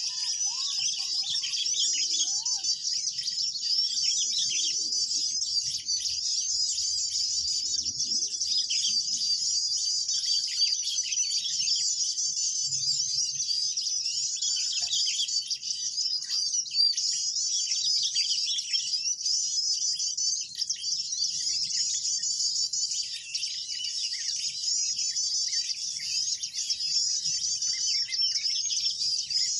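Dense, continuous high-pitched chirping and twittering of many small birds, used as a bird-lure (pikat) call to attract mantenan birds.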